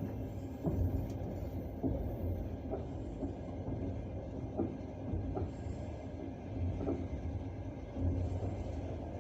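Passenger train carriage wheels rolling on the rails: a steady low rumble with the clack of wheels over rail joints, about six knocks at uneven intervals.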